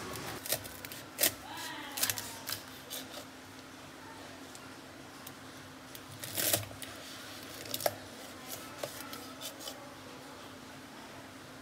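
Kitchen knife cutting through a bunch of chive flower stems onto a stainless steel cutting board. Scattered sharp cuts and knocks, with a cluster of strokes about six and a half seconds in, over a faint steady hum.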